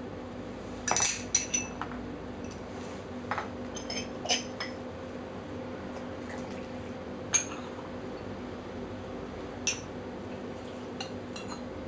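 Porcelain teaware clinking on a wooden tea table: a gaiwan, small cups and a pitcher set down and knocked together as they are rinsed with hot water in the first wash of a Chinese tea ceremony, with water poured from the gaiwan into the pitcher. Scattered sharp clinks, the loudest about a second in.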